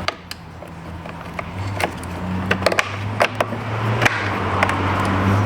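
Scattered sharp clicks and clacks of tools and parts being handled, over a steady low hum that grows louder about a second and a half in.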